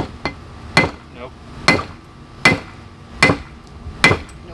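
Hand hammer striking red-hot steel on an anvil during a forge-weld attempt: six evenly spaced blows, a little over one a second, each with a brief metallic ring.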